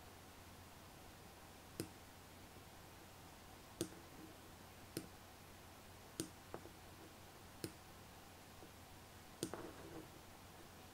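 Computer mouse clicking: about seven single sharp clicks spaced a second or two apart, with a short cluster of clicks near the end, over faint room hiss.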